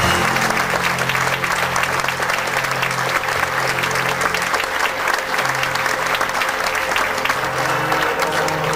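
Audience applauding over music with long held low notes.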